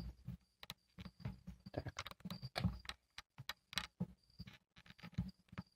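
Handling noise from a camera being repositioned: a string of irregular small clicks, knocks and low rubbing thumps.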